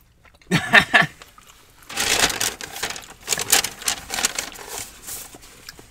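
A brief vocal sound, then about three seconds of paper fast-food packaging crinkling and rustling as it is handled.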